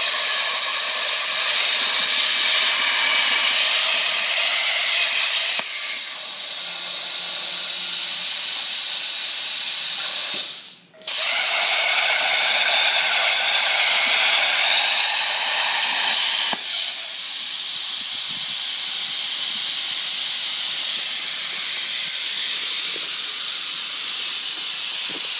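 CNC plasma cutter torch hissing steadily as it cuts through a tube on a rotary tube notcher. The arc stops for a moment about halfway through, then restarts. The hiss dips in level twice, about a fifth and two-thirds of the way in.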